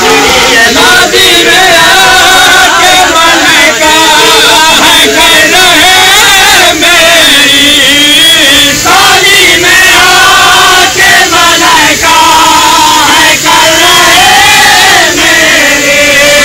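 A crowd of men chanting a noha, a mourning lament for Imam Hussain, together and loudly, with sharp beats recurring through the chant.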